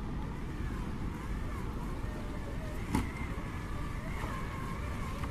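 Traxxas TRX-4 RC crawler's brushed electric motor and gearbox whining, the pitch wavering up and down with the throttle as it crawls over rock. There is a single sharp knock about three seconds in.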